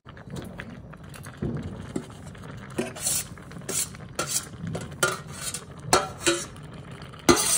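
A spoon stirring and scraping a pot of payas (sweet rice pudding) made with coconut. It clinks against the pot irregularly, about once every half second to a second, more strongly in the second half.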